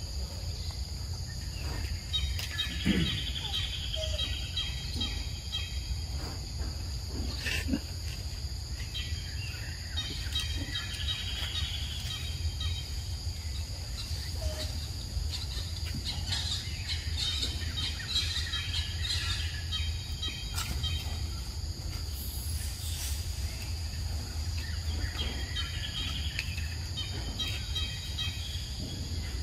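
Forest ambience: birds chirping in several short bouts over a steady high insect drone, with a low rumble underneath and a few faint clicks.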